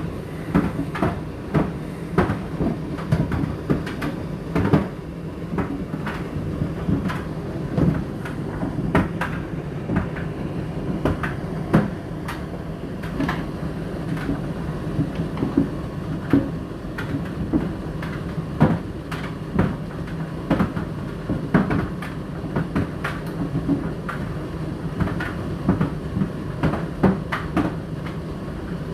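Indesit IDC8T3 condenser dryer and Whirlpool dishwasher running together, the dishwasher on its main wash: a steady low hum with frequent irregular knocks and clatters.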